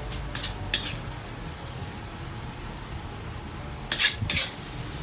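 Metal ladle scraping and clinking against a wok as thick beef-tendon sauce is spooned out onto noodles. There are a few short scrapes near the start and a louder pair about four seconds in, over a steady low hum.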